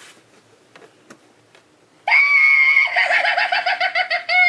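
Animated Halloween candy dish playing a recorded sound effect through its small speaker: after a couple of quiet seconds with a few faint clicks, a loud shrill shriek starts suddenly, breaks into a rapid wavering, and slides down into a falling wail.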